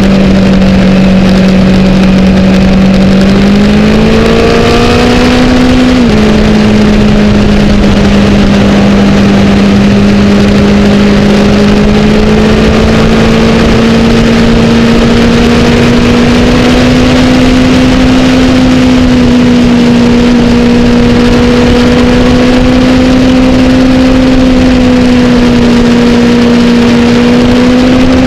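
2008 Honda CBR1000RR's inline-four engine running at highway speed under a loud rush of wind noise. The revs climb about four seconds in and drop sharply at a gear change about six seconds in, then rise slowly as the bike keeps accelerating.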